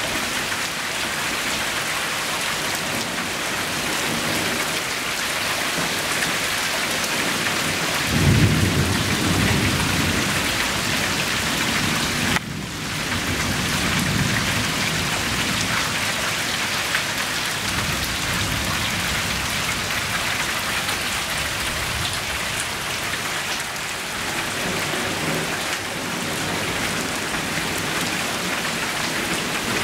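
Heavy rain falling steadily on lawn and pavement, a constant hiss. About a quarter of the way through, a low rumble of thunder rolls in and fades away over several seconds.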